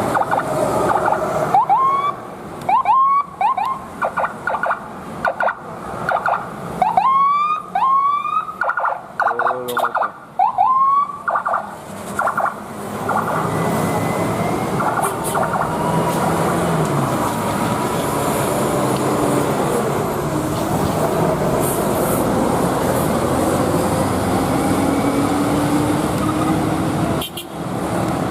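Bus telolet air horn sounding a run of short rising tones in quick bursts for roughly the first ten seconds, then steady traffic noise.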